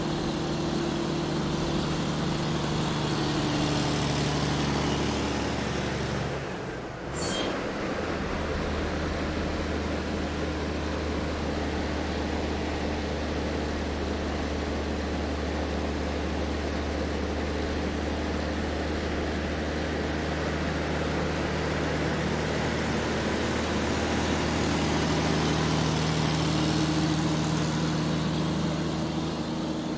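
Large truck driving, its engine running steadily with a constant high whine. About seven seconds in the sound drops briefly and a short high tone sounds, then the steady running resumes.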